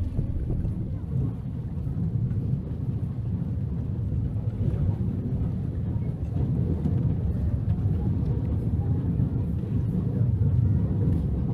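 Steady low rumble of a moving horse-drawn tram heard from its open upper deck, with wind on the microphone.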